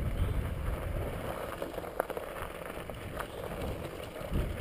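Cruiser bicycle rolling over loose gravel, with wind rumbling on the microphone and a sharp click about two seconds in.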